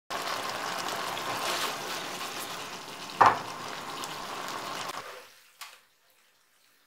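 Chicken breasts and mushrooms in a pan sauce sizzling and bubbling in a frying pan. There is one sharp knock about three seconds in. The sizzle fades out at about five seconds and is followed by a single click.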